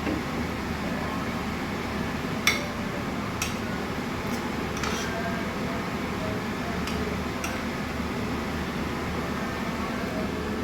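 A few light clinks of utensils against a plate or bowl while eating, the sharpest about two and a half seconds in, over a steady background hum.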